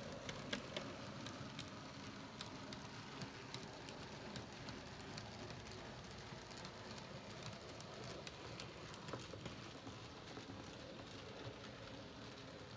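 Model steam locomotive and coaches running along model railway track: a faint steady rumble with irregular small clicks as the wheels pass over rail joints and points.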